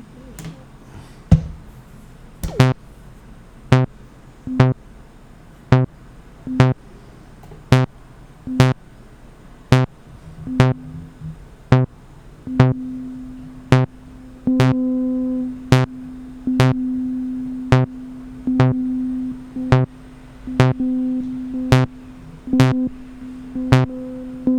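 Vermona PERfourMER MKII analog synthesizer playing a step-sequenced pattern from Maschine MK3: short percussive notes about once a second, joined about halfway by a held low tone with a higher note pulsing over it.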